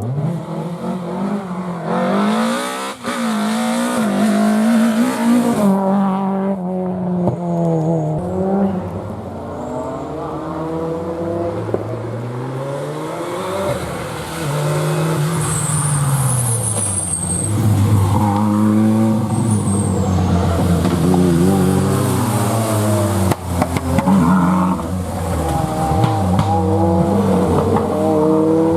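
Rally car engines revving hard, their pitch climbing and dropping again and again as the cars accelerate, shift gear and lift off.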